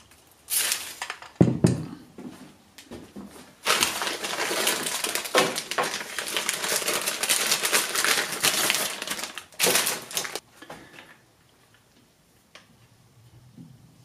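Clear plastic bag crinkling and rustling as it is handled and pulled open, with a few short rustles in the first two seconds and a long dense crinkling from about four seconds in to just past ten seconds, when it stops.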